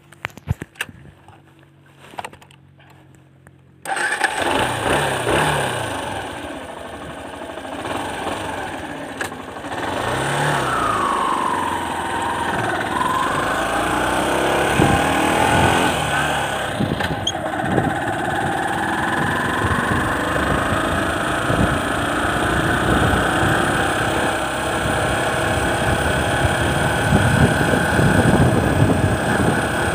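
A few light clicks, then a motorcycle engine starts suddenly about four seconds in and runs under way up a hill. Its pitch rises and falls with the throttle.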